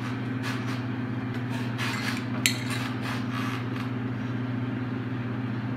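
A steady low hum runs throughout, with soft scraping and one light click about two and a half seconds in as a metal spoon spreads pizza sauce across a soft bread bun.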